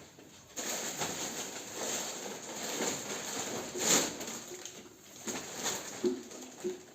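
Plastic shopping packaging rustling and crinkling as bought items are handled, in uneven swells with the loudest crackle about four seconds in.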